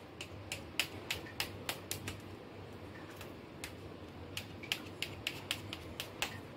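Knife blade clicking and tapping against a steel plate as it cuts through a set slab of cooked chana dal, giving an irregular run of sharp clicks.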